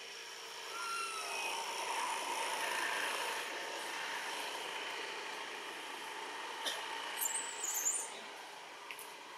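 A motor vehicle passing: a broad running noise swells about a second in and fades slowly. A few short high squeaks and clicks follow near the end.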